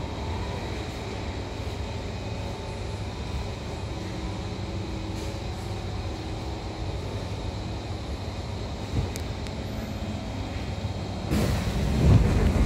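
Steady low hum inside a Kawasaki C151 metro carriage standing at a station platform. A brief click about nine seconds in, and a louder rush of noise near the end.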